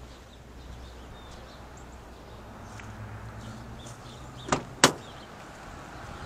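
Two sharp knocks about a third of a second apart, over a low steady rumble.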